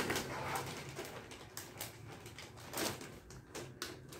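Plastic packaging film crinkling and rustling as it is cut and pulled open by hand, in a run of short, irregular scratchy crackles.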